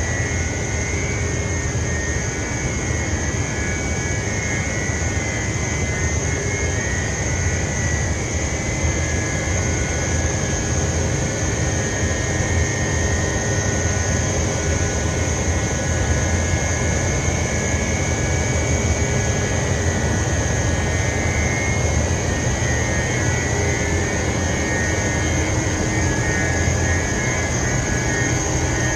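Rock wool production line machinery running steadily: a continuous loud roar with a low hum and a steady high-pitched whine.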